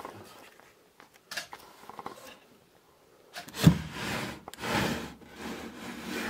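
Wooden drawer of a chest of drawers being pulled open: a few light knocks, then from about halfway through long scrapes of wood rubbing on wood, the loudest just after the midpoint.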